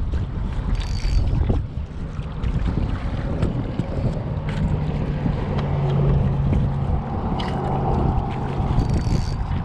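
Wind buffeting the microphone in a steady low rumble, with a few sharp clicks and a low steady hum for several seconds in the middle.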